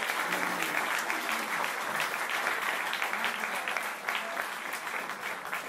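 Audience applauding: a dense patter of many hands clapping, thinning out near the end.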